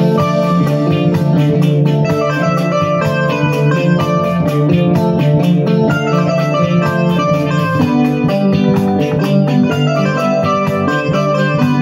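Electronic keyboard being played with both hands: a dense, changing stream of chords and melody notes over a steady low part, with an even ticking beat.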